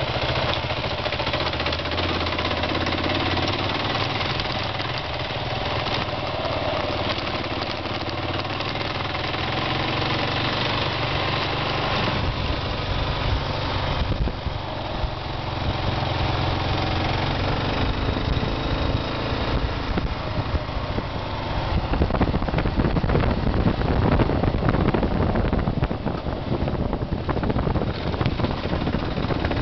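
Kawasaki KLR650's single-cylinder four-stroke engine running under way, with a rushing wind noise on the microphone that grows heavier about two-thirds of the way through.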